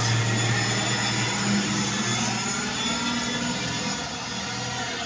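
Caterpillar 950 wheel loader's diesel engine running steadily as the loader works, a low even drone that eases a little near the end.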